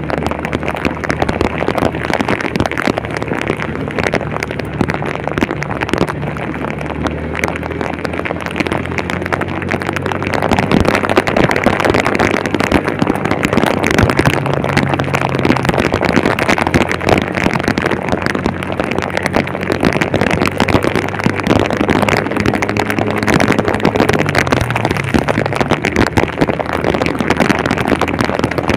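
Heavy rain hissing steadily over a vehicle's engine running on the move, the engine's pitch shifting slightly near the end.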